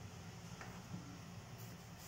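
A few faint clicks and short taps of a kitchen knife as a vegetable is peeled and then cut on a cutting board, over a steady low hum.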